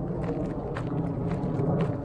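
Footsteps on a rocky dirt trail, a run of uneven scuffs and knocks over a steady low rumble.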